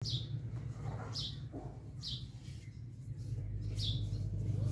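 A bird chirping over and over, a short high falling chirp about once a second, over a steady low hum.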